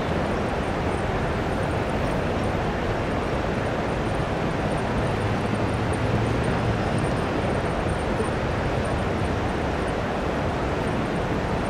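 Steady city street noise of road traffic, a continuous even wash of passing vehicles, with a low engine hum swelling briefly around the middle.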